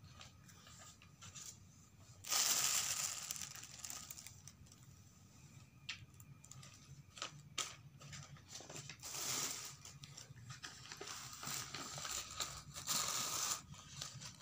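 Paper food wrapping crinkling and rustling as it is handled and unfolded, in several bouts with small clicks and crackles between.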